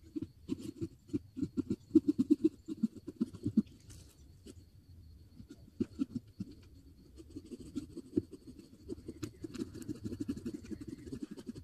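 Small pumpkin-carving saws scraping and sawing through pumpkin rind in quick, scratchy strokes, several a second, coming in runs with a lull in the middle.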